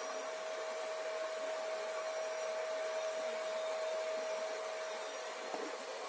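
Homemade bee vacuum running steadily, a constant whine over rushing air as its hose draws bees off the comb.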